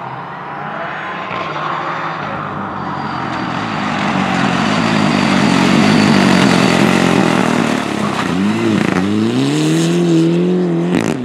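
A rally car at full throttle on a stage, getting louder as it approaches and loudest about six seconds in. The engine note then dips and climbs again as the car accelerates away, and the sound cuts off sharply near the end.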